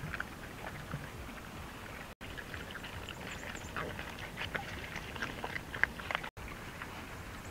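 A pack of young dogs eating cooked fish and eels together: many short, irregular wet smacks, chews and crunches overlapping one another.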